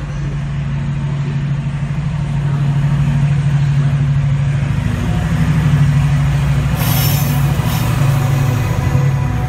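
Diesel freight locomotive in Colas Rail livery passing close by, its engine a steady low drone that gets louder as it comes alongside, followed by its hopper wagons rolling past. A brief high squeal comes about seven seconds in.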